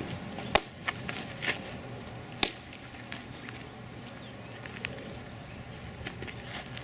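A softball fastball smacks into the catcher's mitt about half a second in. Lighter clicks follow, and another sharp pop comes about two and a half seconds in.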